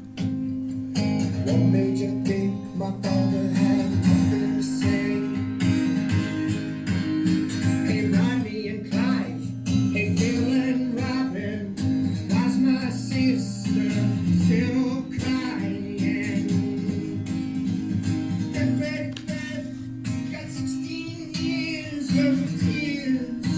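A young man singing a song to acoustic guitar accompaniment.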